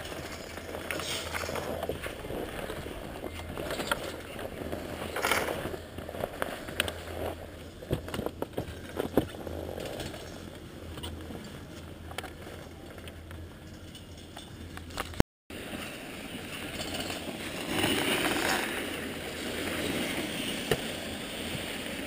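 Snowboard bindings being strapped in: scattered quick ratchet clicks and plastic scrapes, with rustling of gear against snow. Partway through the sound cuts and gives way to a broader rustling noise.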